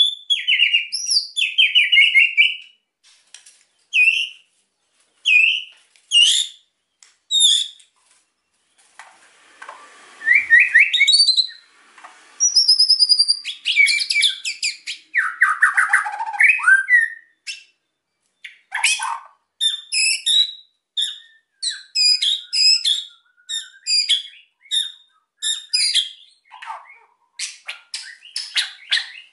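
A white-rumped shama (murai batu) sings an agitated, fired-up song. Short whistled and warbled phrases come first, then a long, dense run of rapid, stuttering chatter notes (the 'kretekan').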